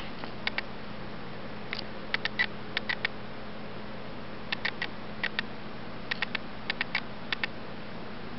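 Small sharp clicks from a handheld camera, coming in quick clusters of two to four and scattered irregularly, over a steady low hum.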